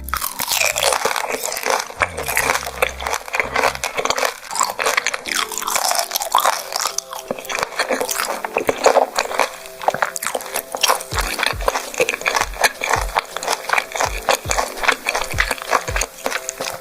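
Close-up chewing and biting of beef large intestines: dense, crackly mouth sounds. Under it runs background music, with a regular bass beat in the second half.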